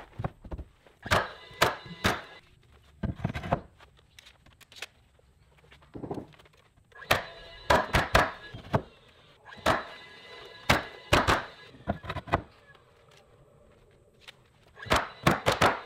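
DeWalt battery-powered coil roofing nailer driving nails through the metal flange of stone-veneer siding panels: sharp shots, single or in quick runs of two to four, each with a short ring.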